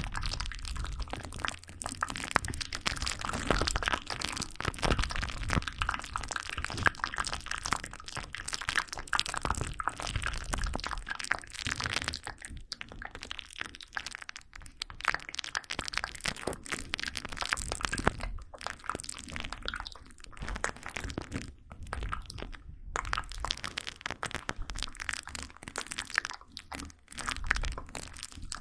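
Close-miked ASMR trigger sounds: a dense, irregular run of small crackles and clicks with brief pauses.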